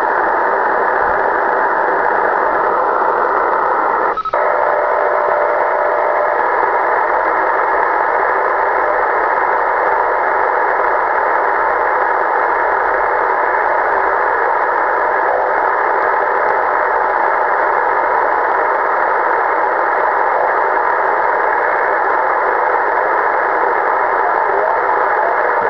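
Kenwood transceiver's receiver giving a steady hiss of static while being tuned across the 27 MHz band with no station coming through. There is a click and a brief dip about four seconds in, then a short faint whistle.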